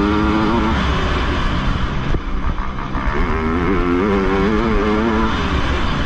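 Motocross bike engine at high revs, backing off about two seconds in and then revving hard again out of the turn before easing near the end, with wind rushing across the helmet-mounted microphone.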